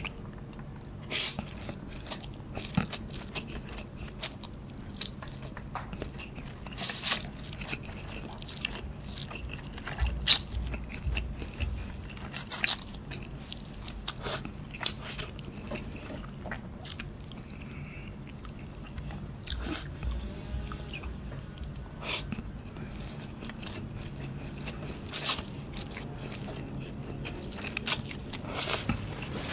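A person eating noodles with his hands: chewing and biting, with many short, sharp mouth clicks and a few low thumps.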